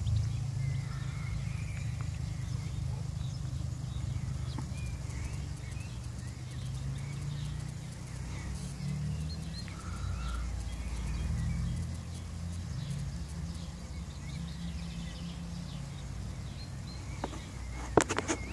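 Wind buffeting the microphone: a low, unsteady rumble, with faint bird chirps above it. A few sharp clicks or knocks come near the end.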